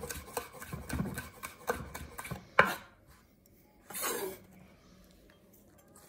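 Chef's knife chopping green chilli on a wooden chopping board: a quick run of knife strokes, about five a second for the first two and a half seconds, the last the loudest. About four seconds in comes a short scraping swish as the chopped chilli is swept across the board by hand.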